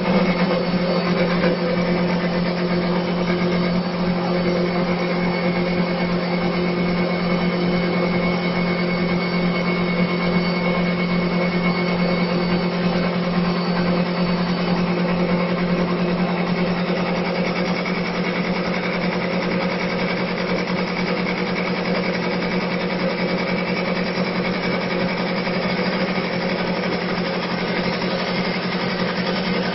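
TJ1530 CNC wood-turning lathe running steadily while its cutter turns a wooden spindle: an even motor hum with a steady whine over the continuous hiss of the cut.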